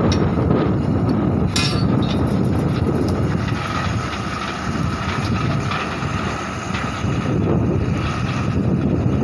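Truck-mounted borewell drilling rig and its air compressor running, loud and steady, with a sharp clank about one and a half seconds in.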